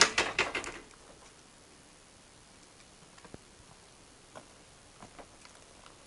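A quick rattling clatter of sharp clicks in the first second, then a few faint scattered ticks.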